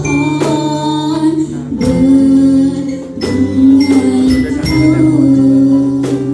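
Music: singing over instrumental accompaniment, with held notes and a new chord struck about every second or so.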